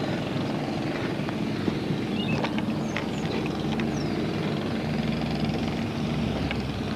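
Heavy engine of the gravel-pit plant running steadily, a constant low drone with no change in speed.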